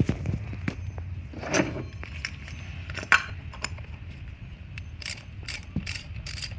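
Socket ratchet turning a cap-type oil filter wrench to loosen a car's oil filter: scattered metal clinks and knocks, then quick ratchet clicks, about four a second, near the end.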